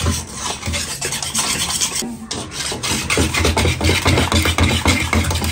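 Hand wire whisk beating runny cake batter in a stainless steel bowl: fast, rhythmic scraping strokes of the wires against the bowl, with a brief pause about two seconds in.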